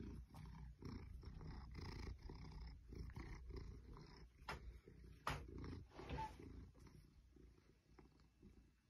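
A Maine Coon cat purring faintly in a steady pulsing rumble, with two sharp clicks about halfway through.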